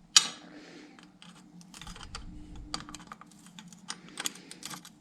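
Small metal clicks and clinks of a wrench working the valve-adjuster jam nut on a 110cc pit bike's cylinder head. There is one sharp clink just after the start, then scattered light ticks.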